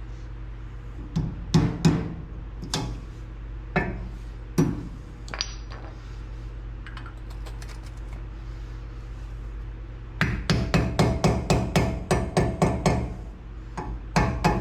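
Hammer blows on metal front-suspension parts: a few scattered knocks, then a fast run of strikes at about six a second from about ten seconds in, and another run starting near the end, over a steady low hum.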